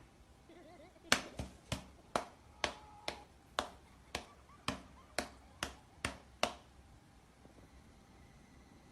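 A run of about a dozen sharp clicks or taps, roughly two a second, starting about a second in and stopping about six and a half seconds in.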